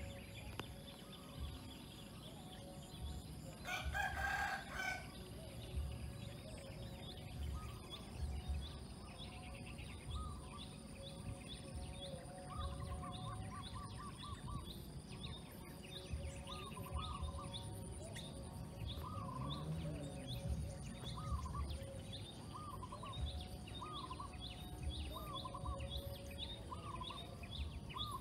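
A rooster crows once, about four seconds in, over a steady high insect drone. From about ten seconds on, a bird repeats a short looping call roughly once a second.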